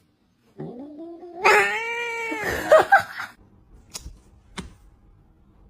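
A cat giving one long, drawn-out meow that rises, holds and falls in pitch, followed by two sharp clicks.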